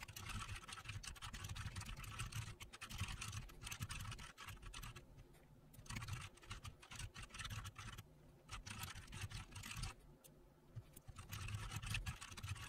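Computer keyboard typing, faint. Runs of rapid key clicks are broken by a few short pauses.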